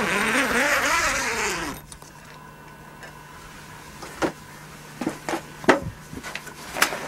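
A loud hissing wash with wavering tones fades out about two seconds in. It is followed by a low steady hum and then scattered sharp knocks and clatters, several in a row, as someone moves about handling things in a small room.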